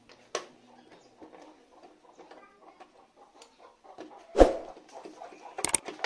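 Handwork on a motorcycle side panel: light clicks and scrapes of a small socket driver loosening a bolt, with a sharp click just after the start, a loud knock about four seconds in, and a quick run of clicks near the end as the panel is pulled loose.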